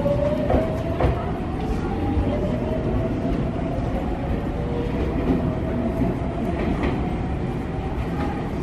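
Sotetsu 8000-series electric train pulling out and accelerating away, its traction motors giving a thin whine that rises in pitch, with a few wheel clacks over rail joints and a steady rumble.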